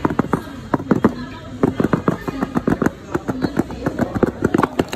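Rapid, irregular clicks and crackles of a cardboard earbud box being gripped and worked open by hand.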